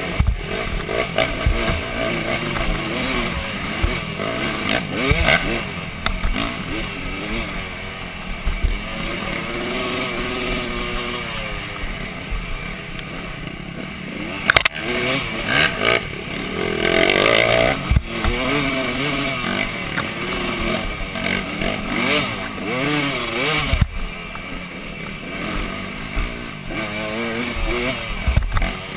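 Dirt bike engine heard close up from the rider's helmet, revving up and down continuously as it is ridden hard over a rough trail. Sharp knocks from the bike hitting bumps come through now and then.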